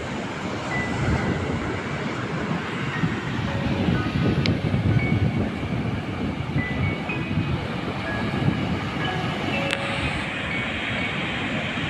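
Sea surf washing on the shore under a steady low rumble of wind on the microphone, with two brief clicks.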